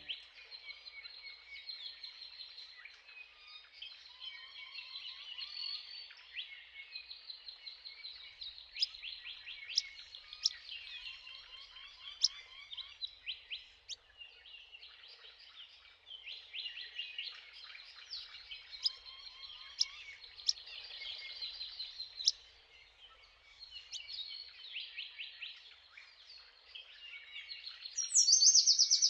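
Chorus of several songbirds, with dense overlapping trills and chirps. A lower repeated trill comes back now and then. Near the end, one loud high call falls in pitch.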